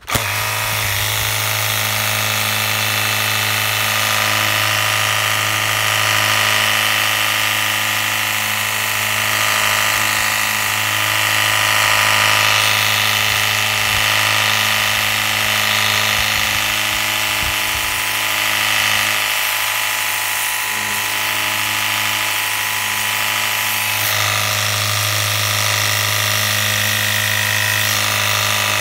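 18-volt cordless battery-powered water pump switching on abruptly and running steadily with an even motor hum and whine. Its pressure-washer jet hisses as it sprays the fins of an air-conditioner evaporator coil.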